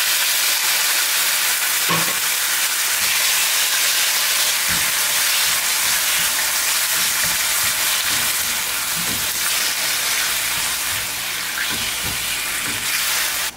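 Raw chicken thigh pieces sizzling loudly in hot olive oil and garlic in a nonstick frying pan, stirred with a spatula that knocks softly against the pan now and then. The sizzle eases slightly toward the end.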